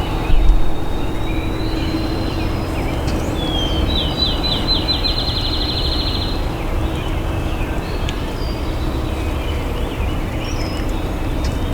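A songbird sings one rapid trill of quick repeated high notes, lasting about two and a half seconds, a few seconds in, over a steady low background rumble, with a brief low thump near the start.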